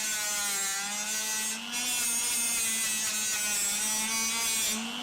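Straight grinder with an abrasive wheel running steadily on rusty sheet steel, stripping rust from the car body: a continuous whine whose pitch wavers a little as the wheel is pressed on and eased off.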